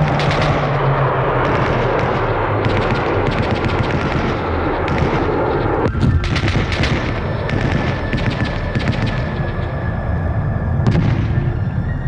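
Battle sound effects of automatic gunfire: dense, continuous firing for about the first half, then separate rapid bursts with short gaps between them.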